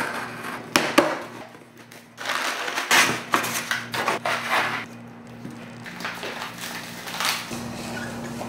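Packing tape slit along the seam of a cardboard shipping box, with a couple of sharp clicks, then cardboard flaps and paper packing crunching and rustling as the box is opened and a product box is lifted out.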